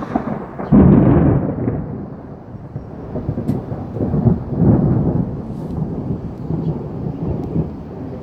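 Thunder rumbling: a loud, deep peal breaks about a second in and rolls off, then a second swell of rumble comes about halfway through.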